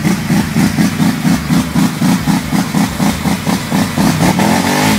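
Quad bike (ATV) engine revving under load with a fast, even pulsing of about four to five beats a second, its wheels churning in deep mud as it is pushed out of a rut. The revs climb near the end.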